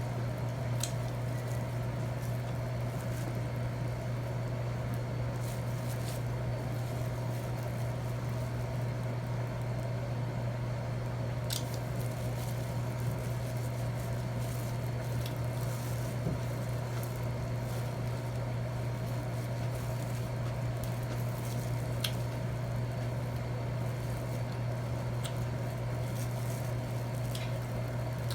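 Eating sounds: wet chewing and a few sharp clicks of cutlery on a plate, over a steady low hum.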